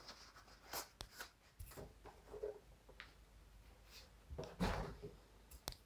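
Faint handling noise of cardboard packaging as a foam insert and a boxed laptop are lifted out of a shipping carton: scattered light knocks and rubs, the loudest about three-quarters of the way through.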